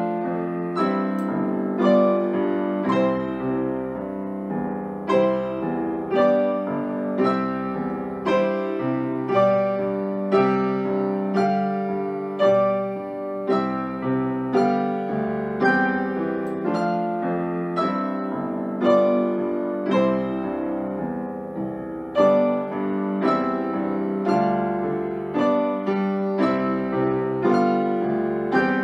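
Grand piano playing a moderate, evenly paced piece, notes struck in a steady flow with a louder accent about once a second.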